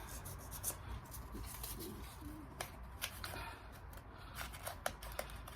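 Light scratching and small irregular clicks of hand work on the ignition contact points of a JAP 5 engine, the points being cleaned up.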